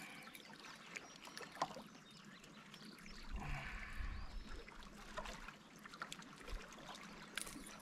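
Faint water lapping and trickling around a kayak, with scattered small clicks and taps as a small bass is unhooked by hand. A brief low rumble comes about three seconds in.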